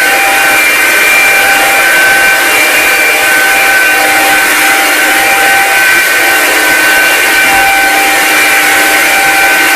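Hoover Linx 18-volt cordless stick vacuum running steadily while vacuuming up coarse salt from a hardwood floor, its motor giving a constant whine over a rushing of air.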